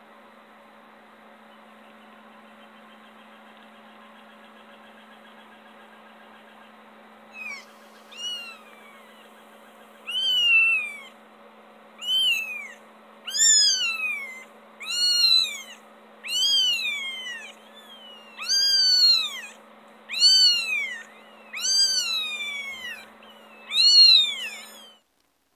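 Two-week-old kitten mewing: about a dozen high, thin cries, each rising then falling in pitch, coming about once a second. They begin about seven seconds in, grow louder and stop just before the end, over a faint steady hum.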